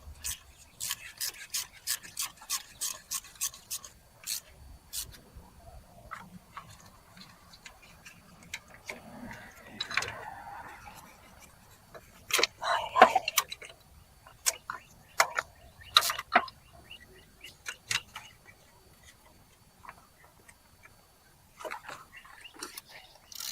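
Hand tools at work on a car during reassembly: a ratchet clicking in quick runs of about four clicks a second, with scattered metal knocks and clanks partway through.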